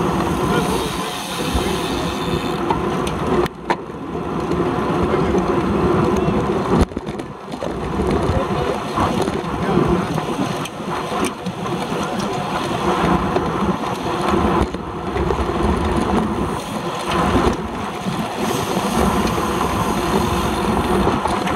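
Rushing wind on the microphone of a handlebar-mounted camera, mixed with the road bike's tyre noise on asphalt while riding at speed in a racing pack. A couple of sharp knocks cut through, a few seconds in and again about seven seconds in.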